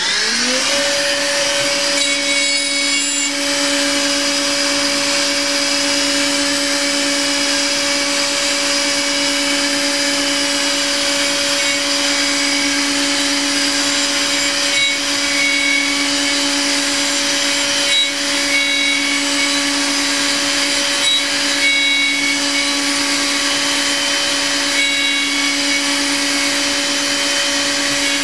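CNC mill spindle spinning up to 17,000 rpm in the first second, then holding a steady whine while a 6 mm ball end mill cuts the block in a Z-level pre-finishing pass. A hiss of cutting runs under it, with a few short, faint higher whistles about halfway through.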